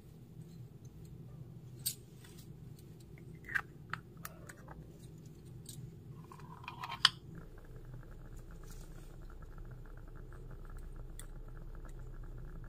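Light clicks and taps of miniature utensils being handled. Then a sharp click about seven seconds in as a small toy mixer-grinder is pressed and switched on, after which its small electric motor buzzes steadily.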